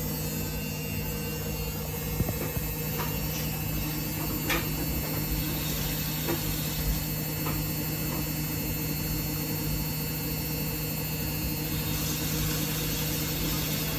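Samsung WF1700WRW front-loading washing machine running mid-cycle: a steady motor hum with a few faint knocks from the drum in the first half.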